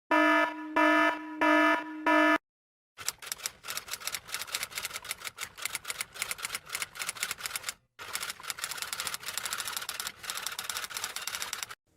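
Four short electronic beeps, then a rapid clatter of typing, keys clicking irregularly for about nine seconds with a brief pause midway.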